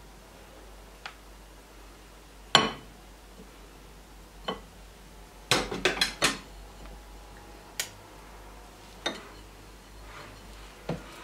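Spatulas knocking and clinking against a glass mixing bowl while stirring waffle batter: irregular sharp clinks, with a quick run of about four close together about halfway through.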